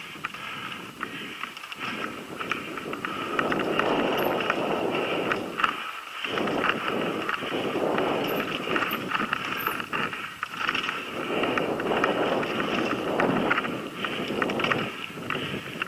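Mountain bike riding down a dirt forest trail: tyres rolling over the rough ground, with constant rattles and clicks from the bike and a rushing noise that rises and falls in swells.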